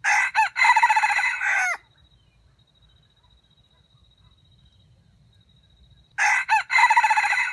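A red junglefowl rooster crowing twice, about six seconds apart. Each crow opens with a couple of short notes and runs into a longer call that ends on a falling note; the second is cut off at the end.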